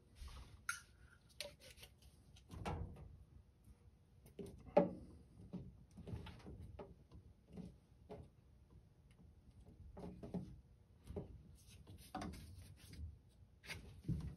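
Plastic condensate-trap parts, PVC fittings, red caps and clear tubing, being handled and pushed together: scattered light clicks, knocks and rubs, with a sharper knock about five seconds in.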